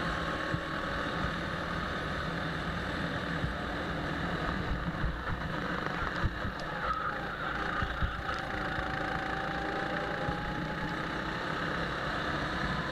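Go-kart engine running at racing speed, heard from the driver's seat, its pitch rising and falling slightly through the corners, with the noise of wind and the kart's chassis underneath.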